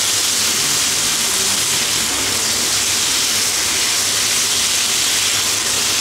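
Pork frying in a pan, giving a steady sizzling hiss.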